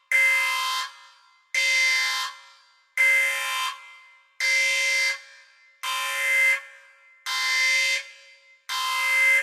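Alarm buzzer sounding in evenly spaced blasts, seven of them, each about two-thirds of a second long and coming roughly every second and a half.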